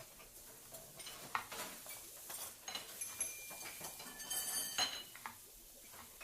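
Kitchen clatter: dishes and utensils clinking and knocking, with a few ringing clinks in the middle.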